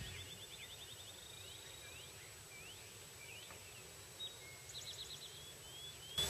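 Faint songbird calls over a quiet field: a quick trill, then scattered chirps and short upward whistles, with a thin steady high tone beneath. Loud music cuts in suddenly at the very end.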